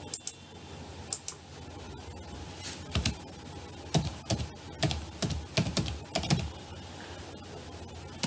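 Computer keyboard keys tapped in scattered, irregular strokes, a few at a time with short pauses between them.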